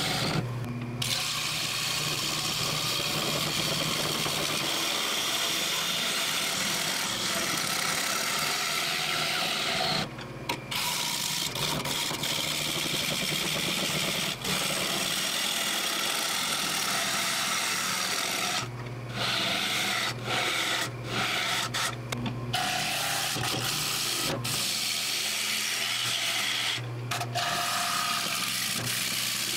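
A turning gouge cutting into a bowl blank spinning on a wood lathe: a steady hiss of shavings peeling off the wood. It breaks off briefly a few times, near the start, around ten seconds in and several times between about nineteen and twenty-three seconds, letting the lathe's low motor hum through.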